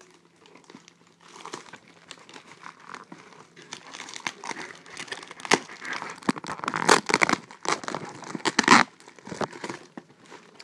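Plastic bubble wrap crinkling and rustling as a package is unwrapped by hand, starting about a second in and growing louder in crackly bursts in the second half.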